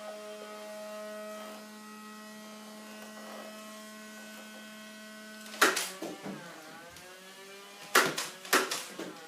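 Motorized flywheel Nerf blaster whirring steadily, then firing darts: a sharp crack a little past halfway and a quick run of shots near the end, the motor's pitch dipping and recovering after each shot.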